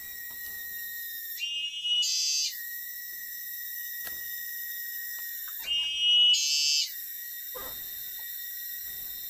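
Forest insect chorus: a steady, high-pitched drone, broken twice by a louder shrill call about a second long, the two calls roughly four seconds apart.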